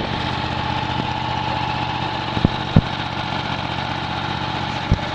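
Kohler 20 HP V-twin engine of a Miller Legend 302 welder-generator running steadily, governor-locked at 1800 RPM, with a steady high hum over it. Two short low knocks come about halfway through and another near the end.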